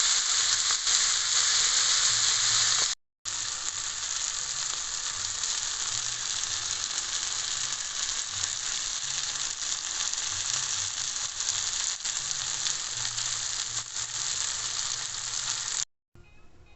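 Food sizzling steadily in a hot frying pan. It breaks off for a moment about three seconds in, comes back slightly quieter, and cuts off shortly before the end.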